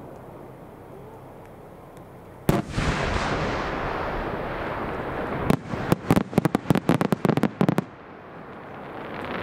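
Aerial fireworks: a single loud shell burst, followed by a few seconds of rushing noise, then a rapid string of sharp bangs lasting about two seconds.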